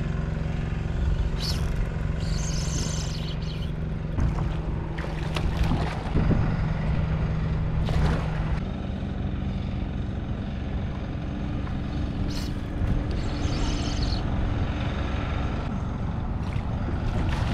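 A boat engine droning steadily, its pitch dropping a little about halfway through, over a low wind rumble on the microphone.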